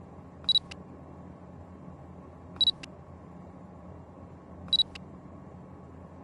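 A camera beeping and clicking its shutter three times, about two seconds apart. Each time a short high beep is followed by a crisp shutter click, over a faint steady hum.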